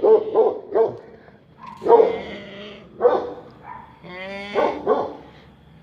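A drunk man snoring in bleating, sheep-like bursts. A quick cluster of short snorts comes in the first second, then single drawn-out snores about once a second.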